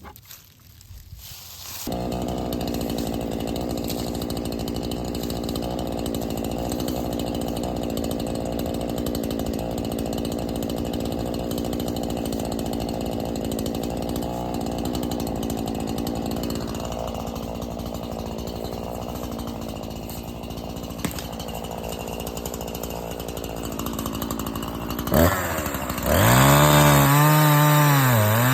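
Two-stroke chainsaw idling steadily from about two seconds in. Near the end it is revved up hard, much louder, its pitch dipping and recovering as it cuts into a downed pine.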